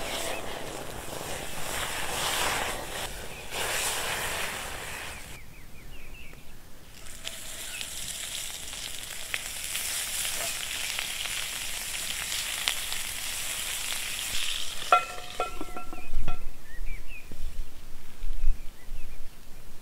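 Food frying in a hot cast-iron skillet over a campfire: a steady sizzling hiss that drops out briefly about five seconds in. Near the end there are a few sharp metallic clanks with a short ring as a second Lodge cast-iron skillet is set on as a lid.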